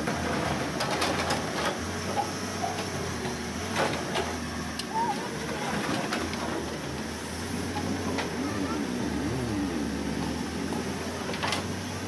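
Halla 130 wheel excavator's diesel engine running steadily, with scattered knocks and clatter of the bucket digging and dropping rubble and soil into a tractor trolley. Voices can be heard in the background.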